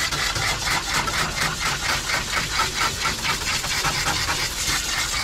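Water spraying from a bathing hose with a scrubber nozzle into a wet husky's coat: a steady hiss that pulses quickly and evenly, about seven times a second.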